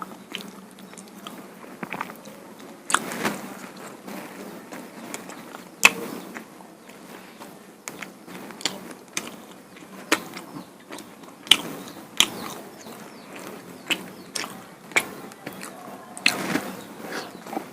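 Close-up eating sounds of a person eating spicy duck curry with rice-flour flatbread by hand: irregular sharp wet clicks and smacks of chewing and handling the food, a few louder than the rest.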